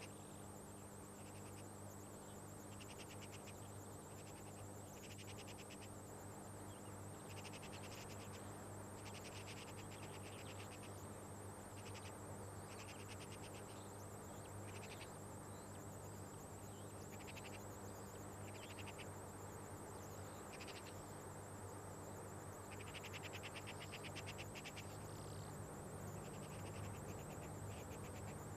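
Insects chirping in short, rapid buzzing trains that come and go irregularly, over a steady low hum.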